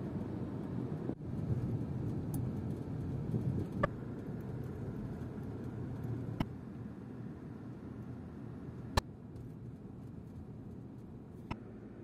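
Car rolling along a road, heard from inside the cabin: a steady low rumble of tyres and engine. Four sharp clicks or knocks stand out over it, a few seconds apart.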